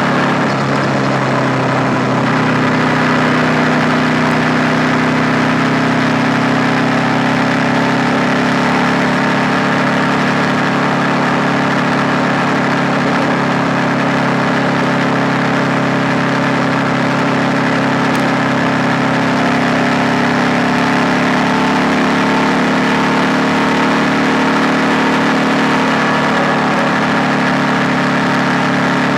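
KTM 890 Duke R's parallel-twin engine running at steady, fairly low revs, its pitch barely changing after a small shift at the start.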